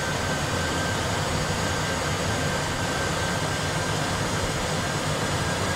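Steady cockpit background noise of an Airbus A320 full flight simulator: an even rush of simulated engine and airflow sound with a faint high whine, the jet running on approach.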